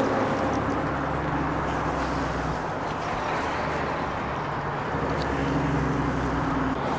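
Steady road traffic: a low engine drone from vehicles on the road, its pitch shifting a few times as vehicles come and go.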